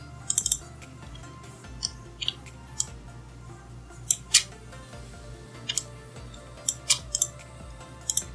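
Computer mouse clicking: about a dozen sharp, short clicks at uneven intervals, several coming in quick pairs or a triple, like double-clicks.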